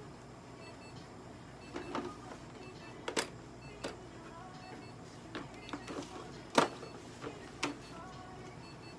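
Handling noises around a cat on a steel exam table: scattered sharp clicks and knocks, the loudest about three and six and a half seconds in, over a faint steady hum.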